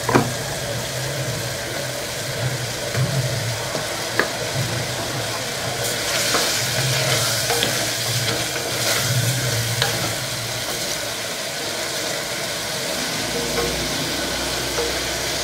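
Onion-tomato masala sizzling in an aluminium pressure cooker as whole stuffed brinjals go in and are stirred with a wooden spatula, with a few light knocks against the pot. The sizzle hiss gets brighter for a few seconds in the middle.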